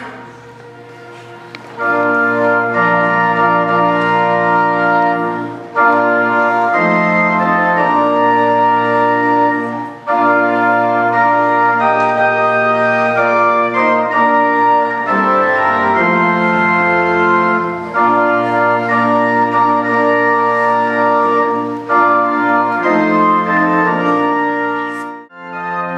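Organ playing slow processional music in long held chords that change every few seconds. It starts about two seconds in and breaks off briefly near the end.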